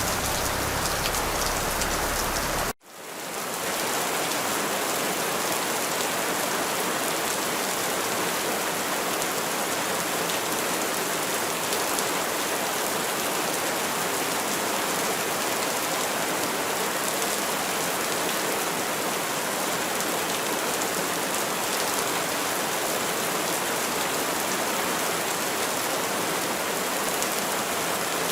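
Steady rain falling, a dense even hiss of drops. About three seconds in it cuts out abruptly for a moment, then fades back in with less low rumble.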